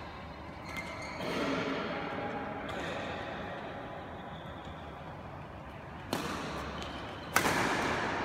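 Badminton racket striking a shuttlecock: two sharp hits about a second and a half apart near the end, the second louder, each echoing through a large sports hall.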